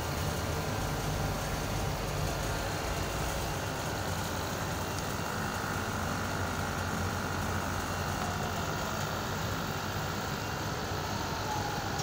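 Panasonic outdoor air-conditioner unit running steadily, its compressor humming and condenser fan turning. The compressor is now starting and running on a newly fitted capacitor.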